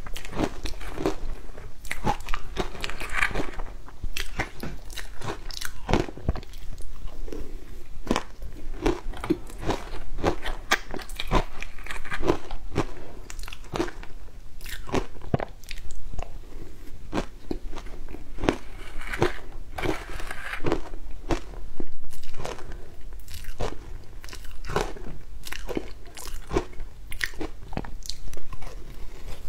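Close-miked crunching and chewing of shaved ice coated in matcha and milk powder: a dense, irregular run of crisp crunches as mouthfuls of ice are bitten and chewed.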